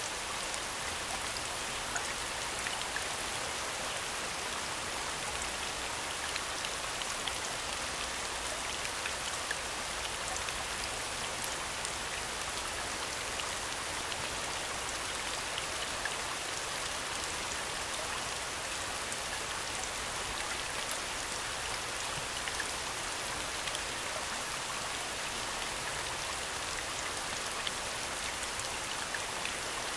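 Steady falling rain: an even hiss with many scattered sharp drop ticks, unchanging throughout.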